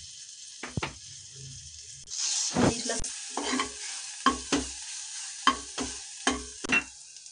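Garlic frying in melted butter in an aluminium saucepan, with a short sizzle about two seconds in. A steel spoon stirring the garlic makes a run of irregular knocks and scrapes against the pan.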